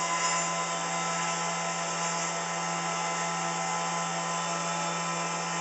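CNC mill's spindle motor running steadily, its bit cutting cardboard, with a constant whine.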